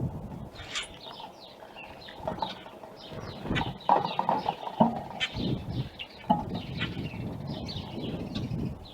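Birds chirping in quick short calls, with soft thumps and rustling mixed in, loudest near the middle.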